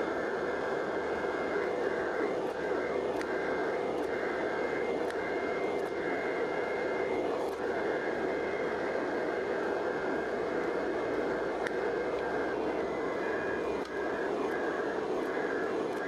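Hydraulic forging press running with a steady mechanical drone while its ram squeezes a hot Damascus steel billet between the dies.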